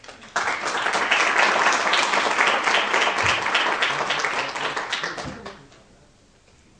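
Audience applause: clapping starts suddenly, holds loudly for about five seconds, then dies away.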